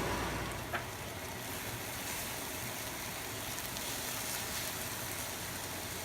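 Onions and vegetables sizzling steadily in a frying pan as they cook with tomato paste.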